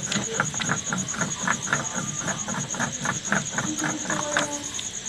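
A frog croaking in a fast, even run of about four to five calls a second, stopping a little over four seconds in, over a steady high-pitched insect trill.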